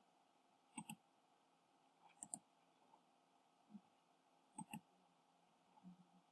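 Computer mouse buttons clicking: three quick pairs of faint clicks, spread over a few seconds.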